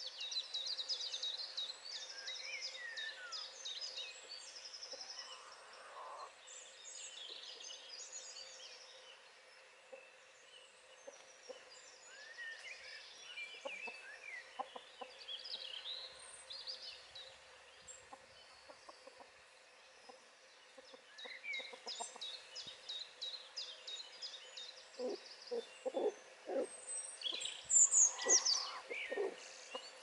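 Wild birds singing and calling: a mix of high chirps, rapid trills and short whistled glides, with a run of lower-pitched calls near the end.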